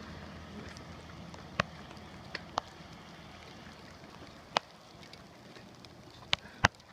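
Scattered sharp clicks and taps, about six of them, two close together near the end, from handling plastic tyre levers and the bicycle wheel while refitting a tube, over a faint steady low hum.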